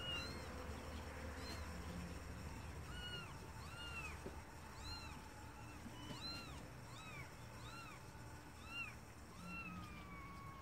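Young kittens mewing: short, high-pitched mews, about two a second, then one longer mew that falls in pitch near the end. They are calling for their mother.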